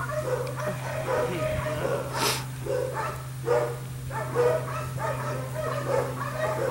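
Six-week-old Dutch shepherd puppy giving short, high-pitched barks, about two a second, while she bites and tugs a jute rag in a bite-work drive test. A steady low hum runs underneath, and a brief hiss comes about two seconds in.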